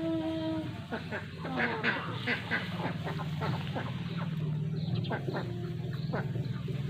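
Ducks quacking, many short calls in quick succession, over a low steady hum.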